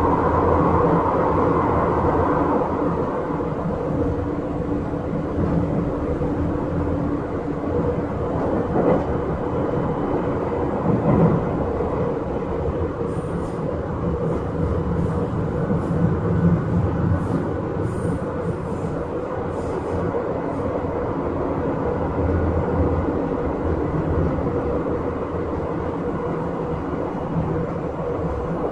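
Izukyu 8000 series electric train running, heard from inside the car: a steady rumble of wheels on rail with motor and gear hum. A steady hum tone in the mix stops about eight seconds in.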